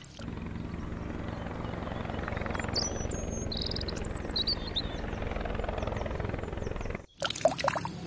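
Helicopter in flight: a steady chop of the main rotor over turbine noise, cutting off abruptly about seven seconds in.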